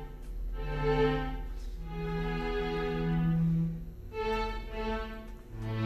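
Slow background score of long held notes, a few chords changing every second or two.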